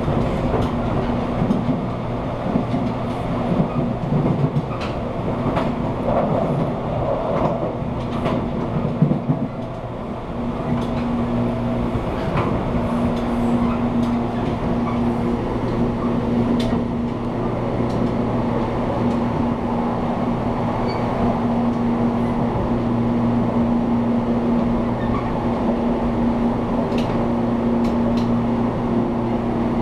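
JNR 183/189-series electric multiple unit running at speed, heard from the vestibule deck: a steady traction-motor whine over the rumble of wheels on track, with scattered rail-joint clicks.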